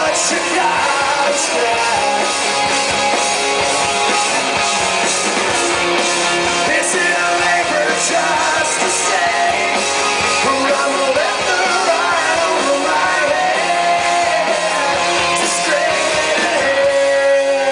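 Rock band playing live with electric guitars and drums, heard loud and full from the audience.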